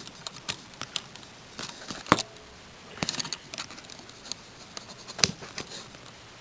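Hard plastic LEGO Bionicle pieces being handled and snapped together: scattered light clicks and rattles, with two sharper clicks about two seconds in and again about five seconds in.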